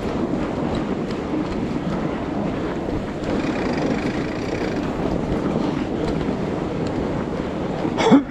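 Steady rolling and rushing noise of a fatbike riding through snow, with wind noise on the microphone. Near the end comes a brief, louder sound whose pitch rises and falls twice.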